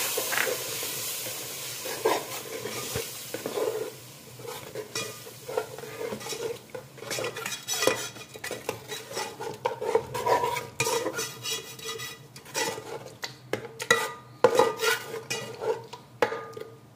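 A metal ladle stirring and scraping frying masala in a metal pot: a sizzle for the first few seconds, then repeated irregular scrapes and clinks of the ladle against the pot.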